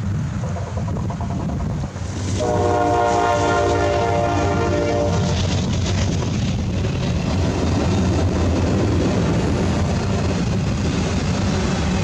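A passing train rumbling steadily, with its horn sounding one long chord for about three seconds, starting a couple of seconds in.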